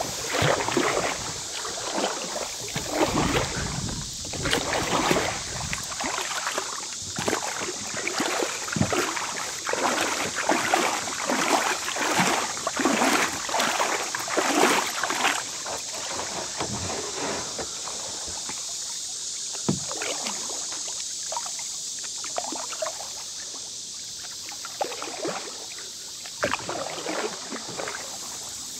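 Kayak paddle strokes, the blades dipping and splashing in the river in quick repeated swishes. About halfway through they ease off to occasional splashes over a steady hiss.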